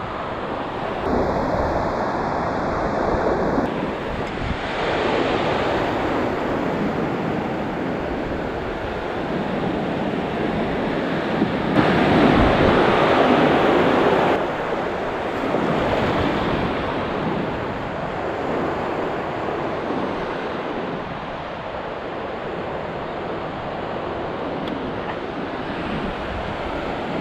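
Surf breaking on a sandy beach, the wash swelling and fading wave after wave, loudest about halfway through, with wind on the microphone.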